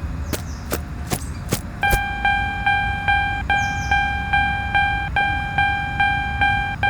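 Railroad crossing warning bell ringing: a repeated pitched ding, about two and a half strikes a second, starting about two seconds in. It follows a run of five sharp clicks.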